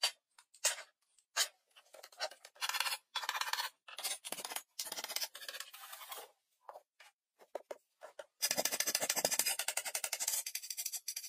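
A knife blade scraping and shaving a wooden pole: a series of short, uneven scraping strokes, then denser, continuous scraping from about eight seconds in.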